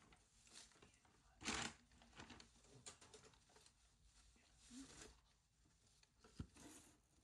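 Faint rustling and crinkling of dry hay as a rabbit moves through its hay bedding, in a few short bursts, the loudest about one and a half seconds in. A single sharp click a little past six seconds.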